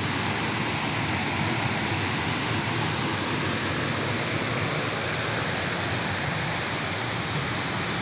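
Small waterfall and shallow stream rushing steadily over rocks.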